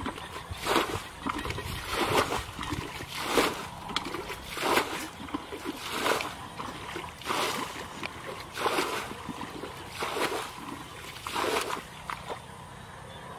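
Footsteps wading through shallow muddy water, a splash and slosh about every one and a half seconds, dying away near the end.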